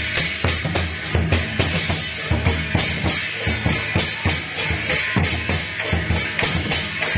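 Music with a fast, steady drum beat, about four strokes a second.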